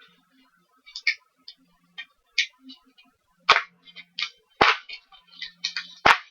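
Packing tape being peeled and torn off a mail package, a run of crackles with three loud, sharp snaps, about a second apart, in the second half.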